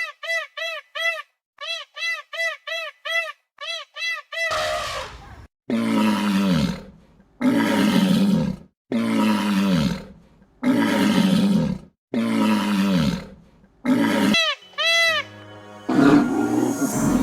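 Rapid short high chirps, about three a second, for the first four seconds, then a run of about six loud animal roars, each a second or so long and falling in pitch, roughly every second and a half. Two more chirps come near the end, and music comes in.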